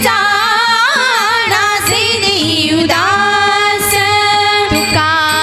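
Women's bhajan group singing a devotional bhajan with percussion accompaniment: a sliding, ornamented sung line that settles into a long held note about three seconds in, over steady drum and cymbal strokes.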